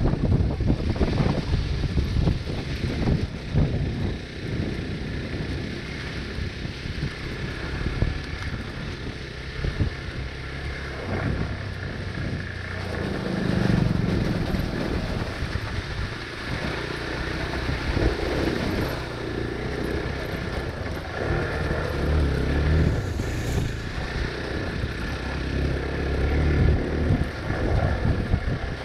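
Hero Xpulse 200's single-cylinder four-stroke engine running as the motorcycle is ridden off-road, the revs rising and falling with the throttle, over the knocks and rattle of the rough trail.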